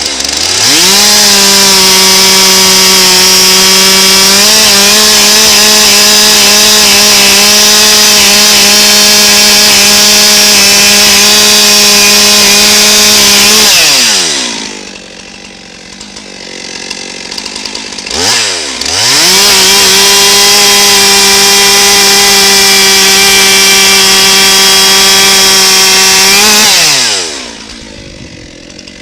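Stihl chainsaw with a freshly sharpened chain, revved up and held at full throttle through two cuts in a red oak log. The first cut runs about thirteen seconds. The saw drops back to idle, is blipped once, then runs a second, shorter cut before falling back to idle near the end.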